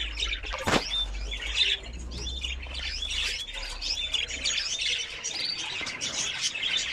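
Budgerigars chattering and chirping continuously in quick, overlapping short calls. A single sharp knock comes under a second in.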